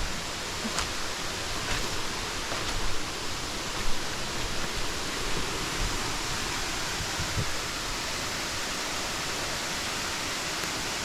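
Waterfall rushing steadily, an even wash of falling water, with a few faint clicks and one brief knock about four seconds in.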